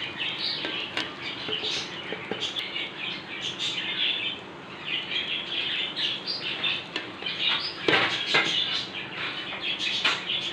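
Birds chirping steadily, with a metal ladle scraping and knocking against a steel cooking pot as rice is served; a couple of louder knocks come about eight seconds in.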